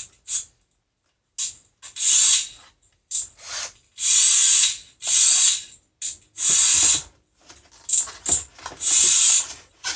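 Bosch 18 V cordless drill/driver run in repeated short bursts of about half a second to a second, with a ratcheting clatter.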